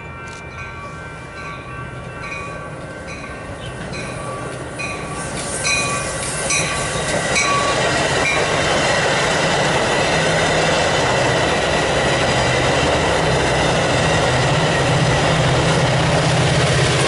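Metra push-pull commuter train passing close by. A bell rings in steady strokes about one and a half times a second as it approaches. The bell is then buried under the growing rumble and clatter of the bilevel coaches' wheels on the rails, and the F40PH-3 diesel locomotive pushing at the rear adds a steady engine drone near the end.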